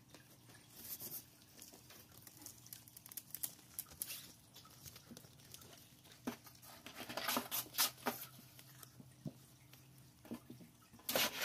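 Kittens scrambling through a crinkly fabric cat tunnel: irregular crinkling rustles and patter, with a cluster of louder rustles about seven to eight seconds in.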